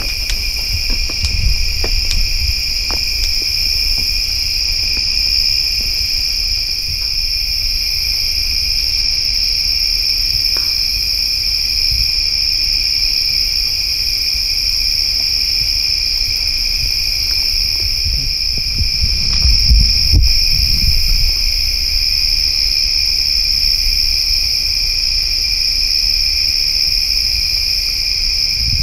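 Steady chorus of night insects: an unbroken shrill trill with a lower, weaker trill beneath it. A low rumble swells for a couple of seconds around the twenty-second mark.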